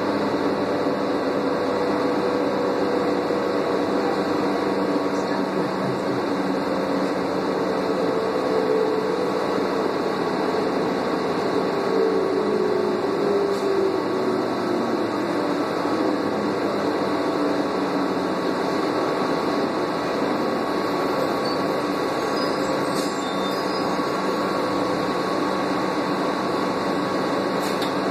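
Cabin noise of a 2001 New Flyer C40LF transit bus under way: the steady drone of its Doosan CNG engine and B400R automatic transmission with road and ventilation noise. About eight to fourteen seconds in, a tone glides slowly down in pitch.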